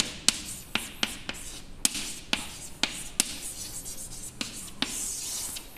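Chalk writing on a blackboard: a string of sharp taps and short scratchy strokes, with a longer scrape near the end.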